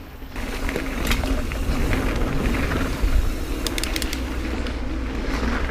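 Mountain bike ridden fast on a dirt singletrack: tyres on the dirt and low wind noise on the microphone, getting louder just after the start, with a few sharp rattles from the bike about a second in and again near four seconds.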